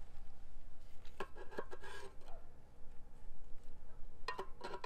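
Steel knife blade scraping and knocking against a cast-iron skillet, working under a cooked bacon-wrapped snake to loosen it from the pan: a few short ringing metal scrapes about a second in, then more near the end.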